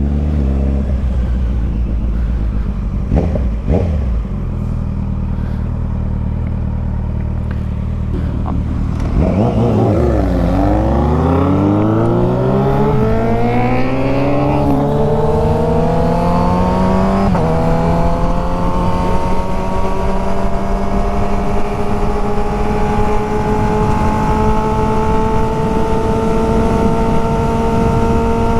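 Motorcycle engine running at a steady note, then pulling away about nine seconds in: the pitch drops, then climbs through the gears with a couple of shifts before settling into a steady cruise.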